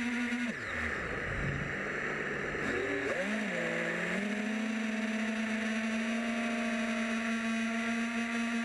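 Multirotor drone's electric motors humming at a steady pitch. About half a second in the pitch drops steeply, as when the throttle is cut. It climbs back in steps and settles into the steady hum again about four seconds in.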